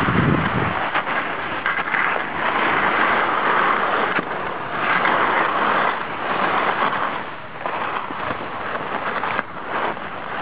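Skis scraping and hissing over packed snow on a downhill run, swelling and fading every second or two, with low wind rumble on the microphone in the first second.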